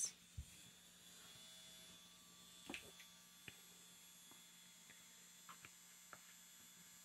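Rechargeable 30,000 RPM nail drill (Melody Susie SR3-Jade) starting up about a second in, then running with a faint, steady hum, with a few light clicks.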